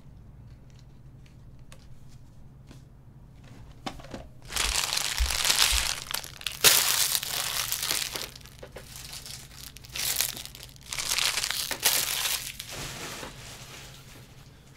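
Plastic wrapping being crumpled and crinkled by hand, in several loud spells after a few quiet seconds of faint clicks.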